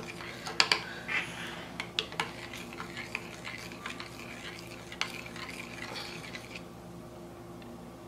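Metal spoon stirring thickened liquid soap in a glass measuring cup, with a swishing sound and several sharp clinks of the spoon against the glass. The stirring stops about six and a half seconds in.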